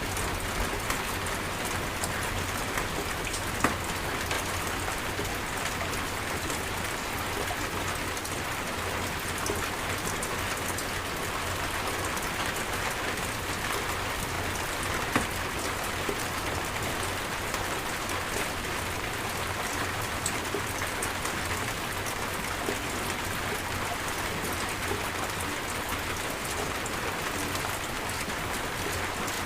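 Steady heavy rain falling, with a few sharper single drop hits, one about three and a half seconds in and another about fifteen seconds in.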